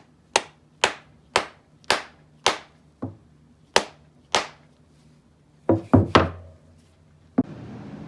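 Sharp knocks of a tool striking wood, each with a short ring: eight strikes about half a second apart, then a quick run of three and one more. A steady rushing noise starts near the end.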